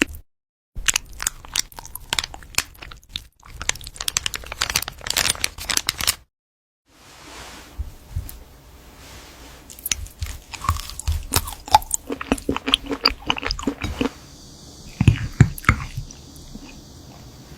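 A cat chewing crunchy food up close, with quick runs of sharp crunches. The sound drops out to silence twice, briefly near the start and about six seconds in, and the chewing is quieter for a few seconds after that before the crunching picks up again.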